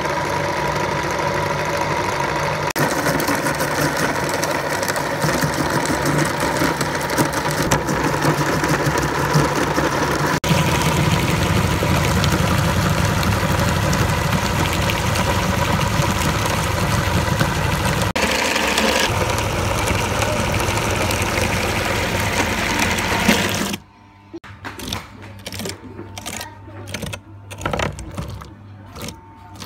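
Motor-driven cast-iron meat grinder running steadily, with a constant mechanical hum, as it grinds raw chicken feet, bone and all. Near the end the steady running stops, leaving quieter, broken-up noises.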